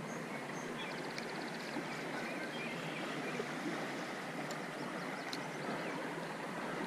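Trout stream flowing, a steady even rush of water.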